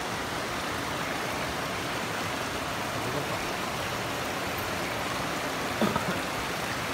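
Steady rush of a fast-flowing river, water tumbling over rocks in white water. A short, louder sound stands out near the end.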